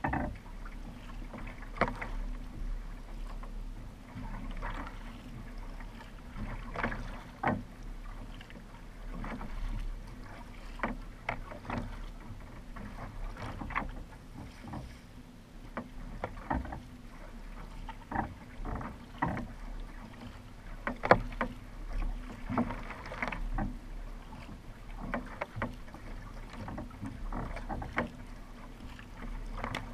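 Racing kayak under way with its paddle strokes splashing into the water about every one to two seconds over a steady rush of water along the hull, heard close from a camera mounted on the deck.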